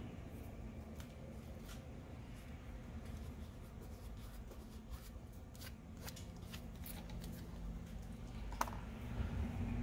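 Faint scratching and small scattered clicks of fingers picking and rubbing old adhesive off a Google Pixel phone's metal frame, over a low steady hum.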